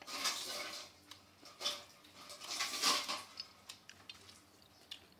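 Chopsticks working boiled pork in bowls: several short, soft scrapes and light knocks against the dishes, the clearest about three seconds in.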